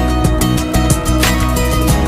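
Background music with a regular beat.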